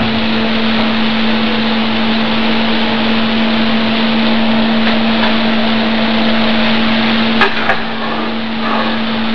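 Steady whirring of a motor-driven fan, an even rushing noise with a constant low hum. Two sharp clicks come about seven and a half seconds in.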